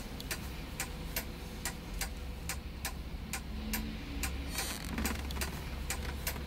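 A clock ticking evenly, about two and a half ticks a second, over a low steady hum, with a brief soft rush of noise about four and a half seconds in.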